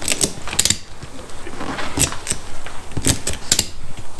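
Ratchet strap being cranked tight around a tire's tread, its pawl clicking sharply at each stroke of the handle, several clicks in quick pairs. The strap squeezes the tread so that the beads push out toward the rim.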